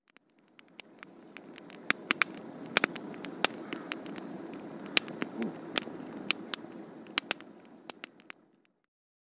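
Irregular crackling and sharp pops over a low, even rushing noise, fading in at the start and out near the end.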